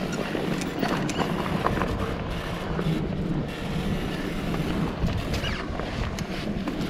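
A mountain bike riding fast down a dirt trail: steady wind rush over the microphone and tyre noise, with scattered clicks and rattles as the bike goes over bumps.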